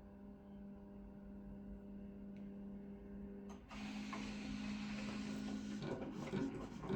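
iAuto automatic writing machine (pen plotter) running, its stepper motors giving a steady whine as they drive the pen through a signature. The tone steps up and gets louder about halfway through, then turns choppy and uneven near the end as the movements change.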